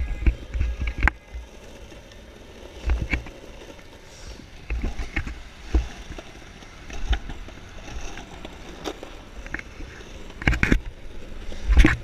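Longboard wheels rolling over city asphalt: a steady low rumble broken by irregular knocks and clacks as the board rides over cracks, painted crossings and seams, with a cluster of heavier thumps near the end.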